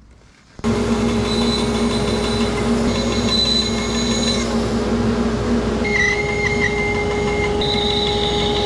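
Bandsaw running and cutting a wooden board. The loud, steady machine noise starts suddenly about half a second in, with higher whining tones that shift as the cut goes on.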